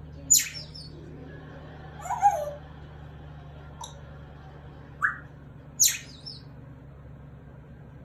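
Congo African grey parrot giving about half a dozen short, sharp whistles and chirps, some sweeping up high, the loudest just after the start, about two seconds in and just before six seconds, over a faint steady low hum.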